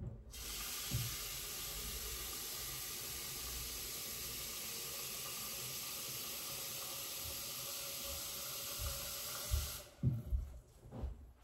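Kitchen tap running steadily for about nine and a half seconds, switching on and off sharply, followed by a few light knocks near the end.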